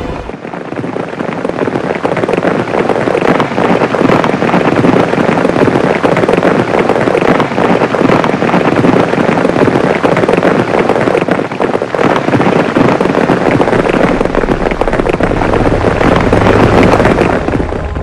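Loud, dense crackling and popping noise that cuts in sharply, builds over the first couple of seconds, holds steady, and eases off near the end.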